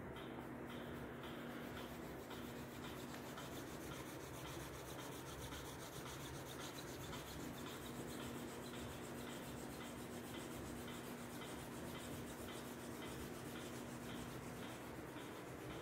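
A hand rubbing rapidly left and right over a shirt on a person's shoulder and upper back: a steady, even rubbing of palm on fabric.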